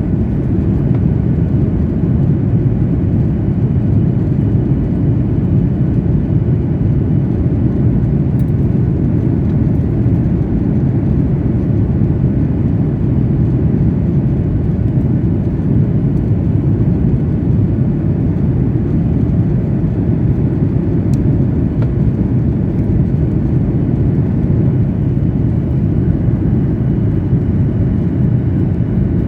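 Steady cabin noise of an airliner descending on approach: a constant low rumble of engines and airflow, with a faint steady high whine over it.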